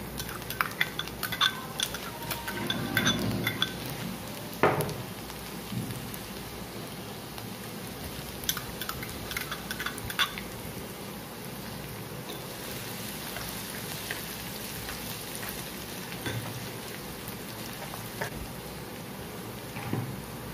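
Chopped garlic and ginger sizzling in hot oil in a non-stick kadai, a steady hiss. A metal spoon scrapes and knocks on the pan in the first few seconds, and a glass bowl clinks several times about nine to ten seconds in as the ginger is tipped in.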